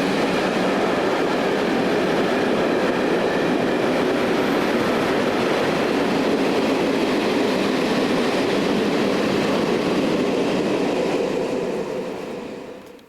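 Freight train rolling past at speed: a steady loud rumble of wagon wheels on the rails, fading away near the end.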